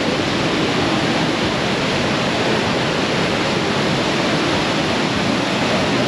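Manavgat Waterfall, a wide, low river waterfall, pouring steadily: an even, unbroken rush of falling water.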